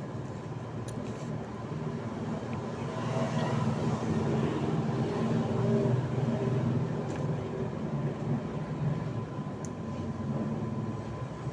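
A passing motor vehicle's engine: a low hum that grows louder over the first few seconds, peaks about halfway, then fades away.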